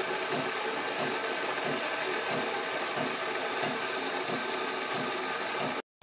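De'Longhi Magnifica Evo coffee machine frothing milk for a cappuccino: a steady hiss and hum as frothed milk runs from the carafe spout into the mug, with a faint regular pulse about every two-thirds of a second. It cuts off suddenly near the end.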